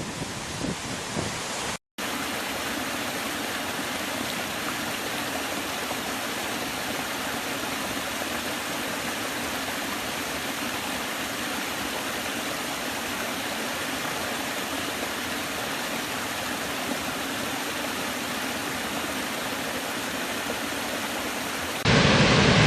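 Steady rushing of falling water from a waterfall, an even hiss-like roar with no distinct events. About two seconds in it cuts out for a split second, and near the end a louder, deeper rush of water takes over.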